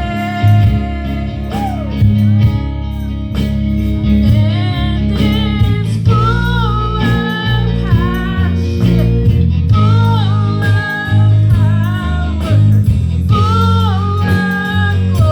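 Worship song with a lead vocal singing over guitar, bass and drums, the beat steady throughout.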